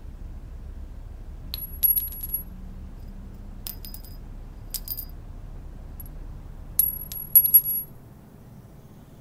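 Sparse, high-pitched metallic clinks and tinkles with a short ring, coming in a few small clusters over a low, steady rumble. The loudest cluster comes near the end.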